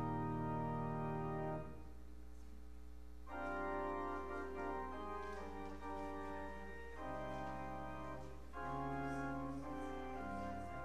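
Church organ playing sustained chords. A held chord stops about a second and a half in, and new chords begin about three seconds in and change twice more.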